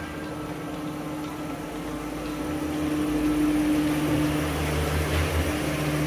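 2022 Nissan Frontier Pro-4X's 3.8-litre V6 running at low speed as the truck pulls into the garage, growing louder over the first three seconds as it comes close, then holding steady.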